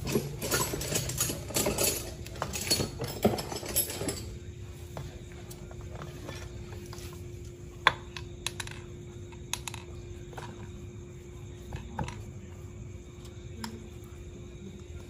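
Scattered metallic clinks and knocks of tools and small metal parts being handled, busy for about the first four seconds and then only a few sharp clicks over a faint steady hum.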